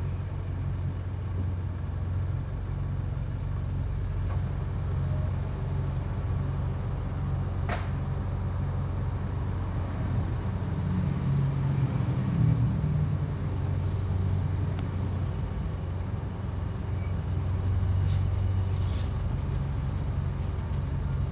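Steady low rumble of a car's engine and road noise heard from inside the cabin, swelling for a few seconds about halfway through, with one short tick about eight seconds in.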